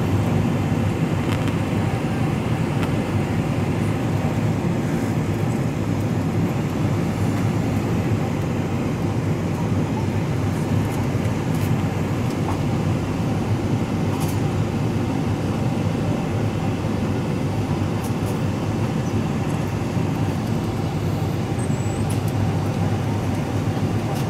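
Boeing 777-300ER cabin noise on final approach: a steady, deep rumble of the jet engines and rushing air over the fuselage.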